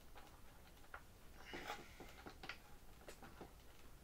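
Near silence with a few faint clicks and a brief scrape about one and a half seconds in, from a small screw being started by hand with a screwdriver into the plastic tail mount of an RC airplane.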